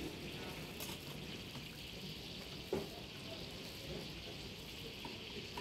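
Sliced vegetables frying in deep hot oil in a large steel cauldron, a steady sizzle while a metal skimmer stirs. A single sharp metallic knock comes about halfway through as the skimmer is set down on the cauldron's rim.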